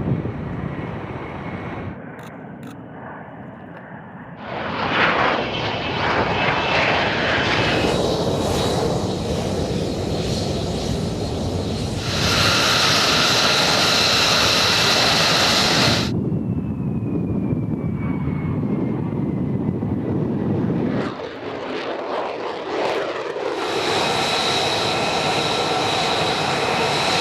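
F-35B Lightning II fighter's jet engine running, heard as a string of edited clips that change abruptly several times. In some stretches a steady high whine sits over the rushing jet noise.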